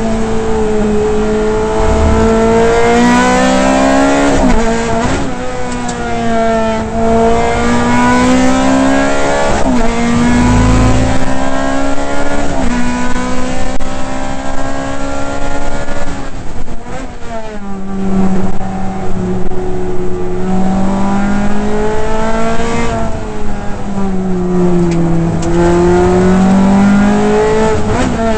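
Ferrari F430 GT race car's V8 engine heard from inside the cockpit at racing speed, its pitch repeatedly climbing and dropping as it revs up through the gears and comes down through them for corners.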